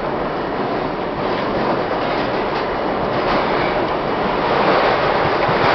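R-32 subway train running at speed through a tunnel, heard from inside the car: a steady rumble and roar of steel wheels on rail and the running gear, with a few faint clicks, growing a little louder toward the end.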